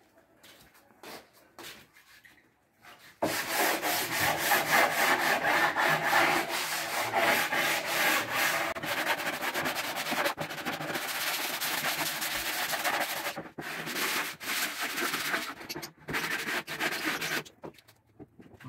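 Plywood board being hand-sanded with sandpaper on a sanding block: quick back-and-forth scraping strokes that start about three seconds in and run with a few brief pauses, stopping just before the end.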